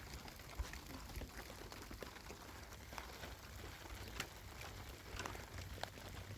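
Faint patter of raindrops: scattered irregular ticks of drops striking a surface over a low steady rumble.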